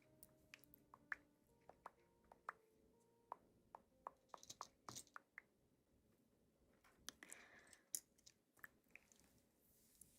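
Quiet close-up eating sounds: irregular soft wet clicks and smacks of chewing, with a short noisier patch about halfway through and again near the end.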